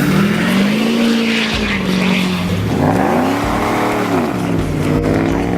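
Car engine revving hard, its pitch climbing and falling away twice, then holding steady near the end.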